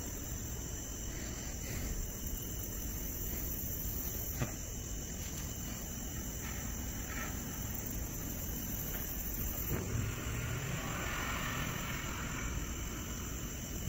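Crickets chirping steadily over a low, continuous rumble of road traffic, with a single sharp tick about four seconds in.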